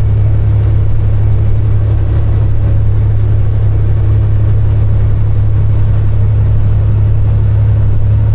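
Steady, loud drone inside the cab of a Kenworth W900 semi truck as it drives, a low hum with a rumble beneath it. The drone includes the noise that the driver takes for a transmission problem.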